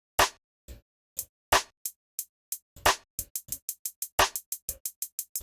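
Programmed hi-hats and a snare playing back from FL Studio, with the louder snare hit about every 1.3 seconds. The hi-hats start at about three a second and get denser about three seconds in as the piano roll chopper divides the note more finely.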